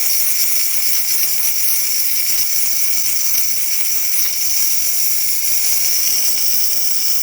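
DeLonghi PrimaDonna espresso machine's steam outlet blowing steam in a loud, steady hiss. It is steaming properly at full pressure, with the newly replaced steam thermoblock working.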